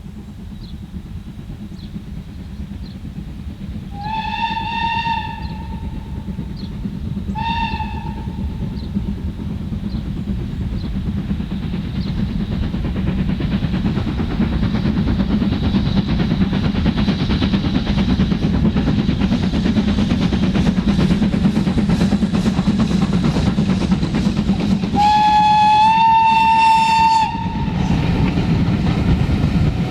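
Steam locomotive whistling as its train approaches: one whistle about four seconds in and a short one soon after, then a longer whistle near the end that steps up slightly in pitch. Under the whistles the rumble of the locomotive and train grows steadily louder as it draws near.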